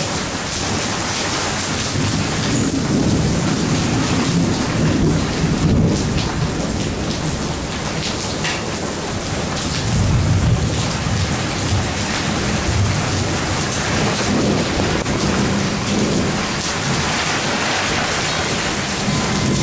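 Thunderstorm: steady rain hissing throughout, with thunder rumbling low underneath and swelling up several times.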